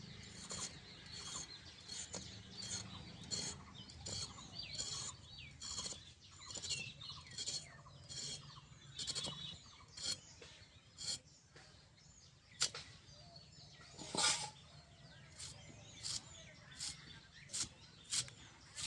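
Vegetables being cut by hand: a run of short, crisp cutting strokes, about one or two a second, with a couple of louder strokes later on. Birds chirp in the background.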